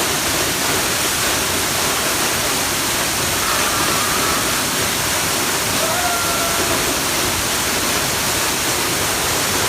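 Waterfall: a continuous, even rush of falling water.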